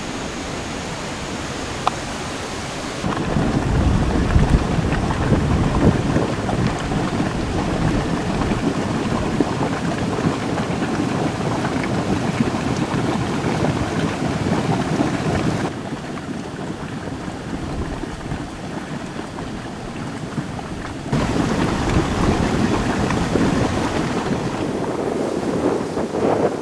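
Waterfall rushing steadily, a dense roar of falling water. It jumps louder about three seconds in, eases off around sixteen seconds and grows loud again about twenty-one seconds in.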